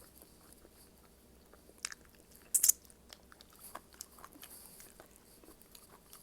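Close-up eating sounds: a person chewing, with small wet clicks and one short, loud crunchy bite about two and a half seconds in.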